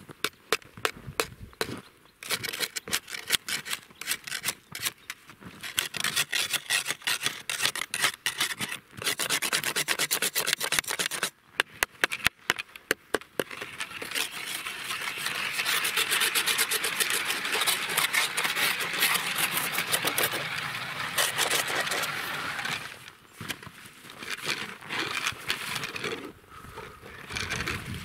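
Ice auger boring through ice: an uneven crunching and scraping that settles into a steady grind in the middle, then turns uneven again near the end.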